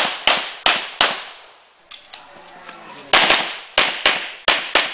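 Semi-automatic pistol firing rapid shots in two strings: four quick shots, a pause of about two seconds, then about six more in quick succession.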